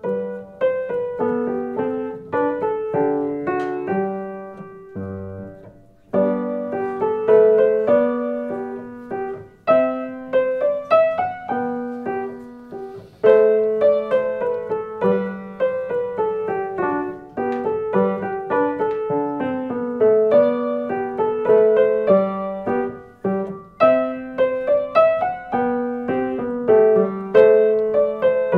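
Solo piano playing a melody over a lower accompanying line. The playing stops briefly about five seconds in, then carries on.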